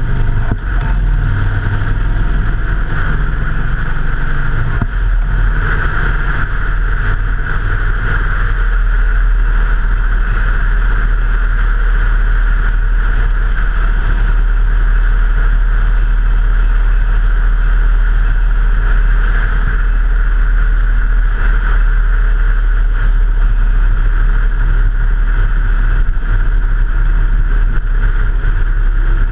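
Motorcycle under way at a steady speed: the engine's low drone under wind and road rush, as heard from a camera mounted on the bike. The engine note drops a little about five seconds in.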